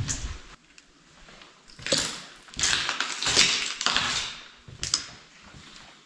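Footsteps scuffing and crunching over a gritty floor, a handful of irregular steps with short pauses between them.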